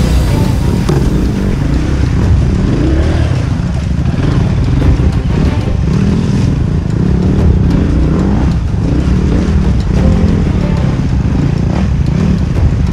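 Four-stroke single-cylinder dirt bike engine being ridden, its pitch rising and falling as the throttle opens and closes, with scattered short clattering knocks.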